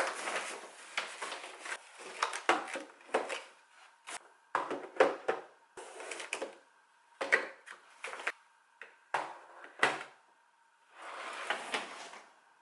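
A string of irregular knocks, clicks and short rustles from objects being handled, with a faint steady hum underneath.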